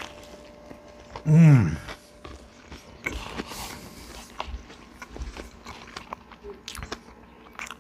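A man chewing a big mouthful of smash burger, with small wet clicks and mouth noises throughout. About a second in he gives one loud 'mmm' that falls steeply in pitch.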